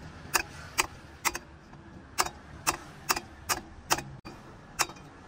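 A hammer striking metal in a steady rhythm, about two sharp ringing blows a second.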